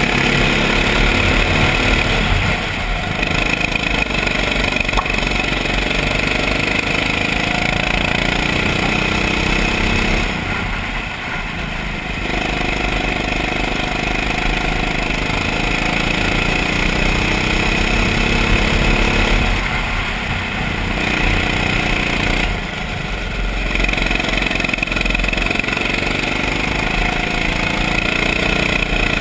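Rental go-kart's engine heard from the driver's seat at racing speed, its revs rising and falling with the track; it drops off briefly three times as the driver lifts for the bends.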